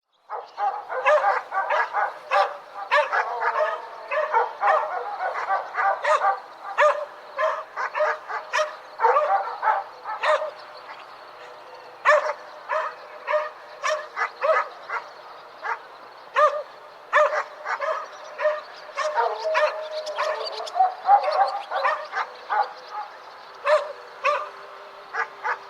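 Several dogs barking repeatedly in short, sharp, overlapping barks. The barking is thick at first, thins out to scattered barks in the middle, and picks up again near the end.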